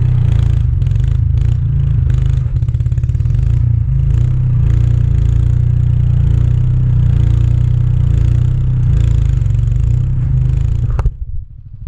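Small gas engine of a walk-behind bed redefiner running hard, with clatter and scraping as its blade cuts into the soil. The sound drops off sharply about eleven seconds in.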